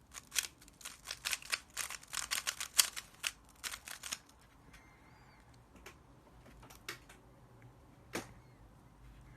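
Rubik's Cube being turned very fast in a speedsolve: a dense run of quick plastic clicks and clacks for about four seconds, then a few single clicks.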